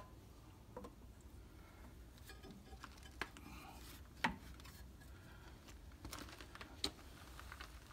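Faint, scattered clicks and knocks of hands handling a plastic oil funnel and parts on the engine, the sharpest click about four seconds in, over a low steady hum.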